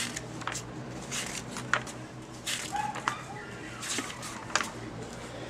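Paper pages of a printed service manual being handled and turned, giving several short rustles and clicks. A brief faint squeak comes about three seconds in.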